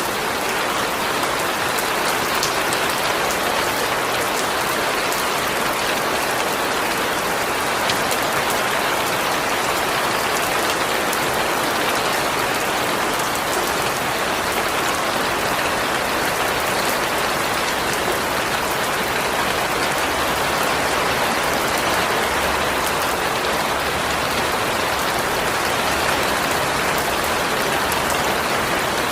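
Steady rainfall, an even hiss of rain with scattered drop ticks on surfaces.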